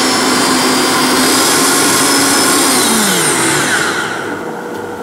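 Countertop blender motor running at high speed, pureeing strawberries with juice and honey, then switched off: about three seconds in its whine slides down in pitch and fades as the motor winds down.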